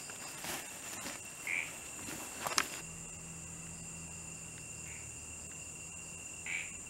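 A night chorus of crickets trilling steadily and high-pitched. For the first few seconds there is also rustling and clicking from movement through dry leaf litter, ending in a sharp click; after that the crickets go on alone over a low hum.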